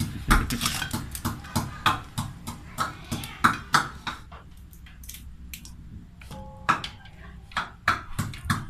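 A run of short sharp clicks and knocks, like household items being handled and set down, with brief bits of voices in the first half.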